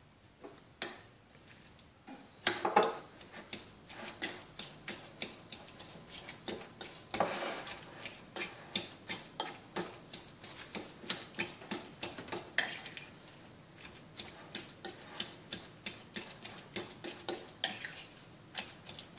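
Metal fork stirring and mashing a fresh cheese filling in a ceramic bowl, clicking and scraping against the bowl over and over, with a few louder knocks.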